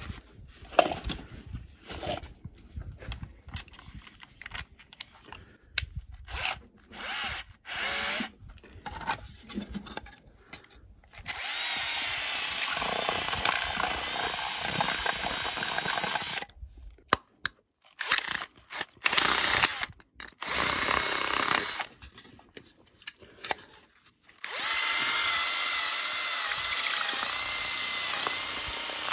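Cordless drill with a step drill bit boring holes through white plastic electrical boxes. The first third holds handling clicks and knocks with a few short bursts of the drill; then come long steady runs with short bursts between them, the last run carrying a faint whine as the bit cuts.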